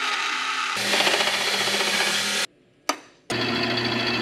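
Vertical bandsaw cutting thin sheet steel: a steady hiss of blade on metal over the machine's hum, growing louder about a second in. It stops abruptly, a single click follows, and then a drill press runs, its bit drilling through the steel sheet.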